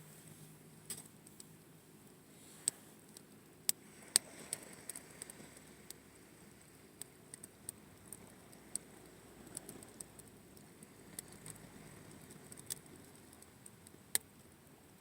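Campfire crackling: wood burning with irregular sharp pops and ticks, a few of them louder snaps.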